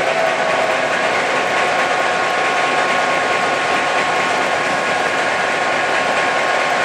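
NOHAB M61 diesel locomotive's EMD 567 V16 two-stroke engine running, heard from inside the engine room: a loud, steady, dense engine noise with a faint steady whine over it.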